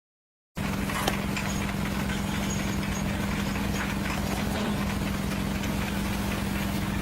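An engine running steadily at idle: a steady low hum over a pulsing rumble. It begins abruptly about half a second in, with a sharp click about a second in.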